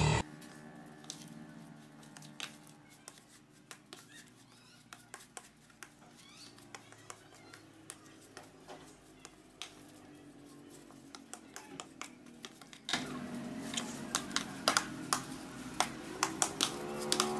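Hands kneading and squeezing moist fish-pellet bait dough in a plastic bowl, giving faint, irregular clicks, crackles and squishes.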